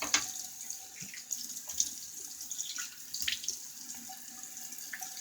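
A tap running into a sink, a steady rush of water with a few short knocks and splashes through it.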